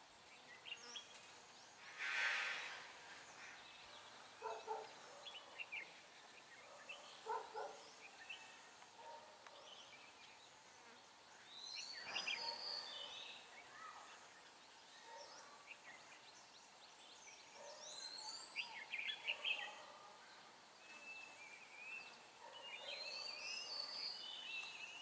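Red-whiskered bulbuls singing in a duel: short, bright, chirpy phrases with quick pitch glides every few seconds, faint, with a few lower calls between.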